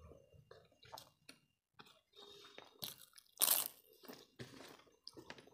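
Close-up chewing and mouth sounds of people eating rice and curry by hand: soft smacks and clicks, with one much louder crunching bite about three and a half seconds in.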